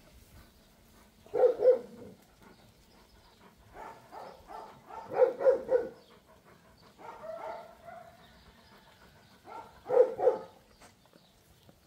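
A dog barking in three short runs of two or three barks each: about a second and a half in, around five seconds in, and about ten seconds in.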